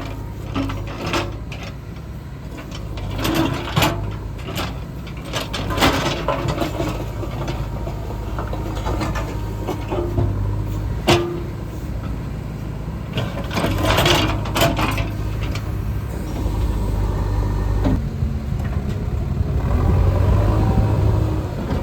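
Heavy diesel construction machinery running steadily, with repeated clanks and knocks of metal and loose material. The engine note grows louder in the last few seconds.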